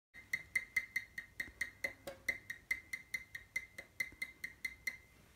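Electric bass strings struck rapidly by hand, giving an even run of short, high, glassy pings at one pitch, about four or five a second, fading a little near the end.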